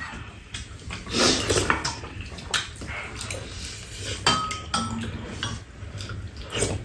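Metal spoons and chopsticks clinking and scraping against bowls and a frying pan during a meal, in irregular clicks, with a short ringing clink about four and a half seconds in.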